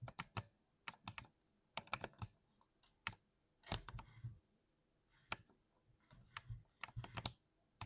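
Typing on an oiled 60% keyboard: irregular runs of key strokes with short pauses between them.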